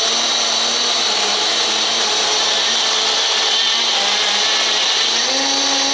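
Electric mixer grinder (mixie) running at full speed on its small jar, blending frozen milk, ice cream and Kit Kat into a milkshake. It is a loud, steady motor hum over liquid churning, and its pitch rises a little about five seconds in.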